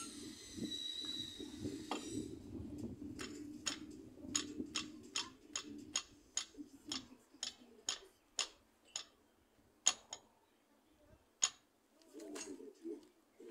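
A run of sharp, separate clicks, about one to two a second, for several seconds, with a short low pitched call near the end.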